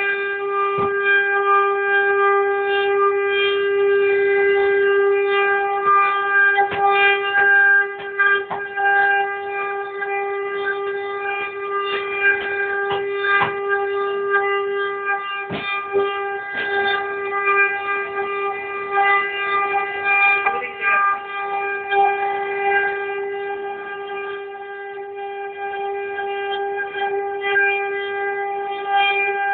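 CNC router spindle running with a steady whine while the bit cuts wood, with scattered ticks and crackles from the cut.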